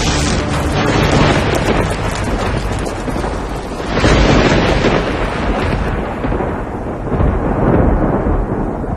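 Rumbling fire-and-explosion sound effect, a dense roar that swells sharply about four seconds in as a blast sounds, then slowly dies away and grows duller.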